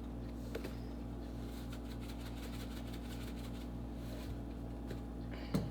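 Steady low mechanical hum holding several fixed tones, with a few faint clicks and taps.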